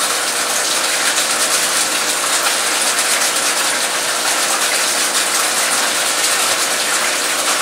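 Aquarium aeration: a stream of air bubbles rising and breaking at the water surface of a fish tank, giving a steady, crackling bubbling, with a steady hum underneath.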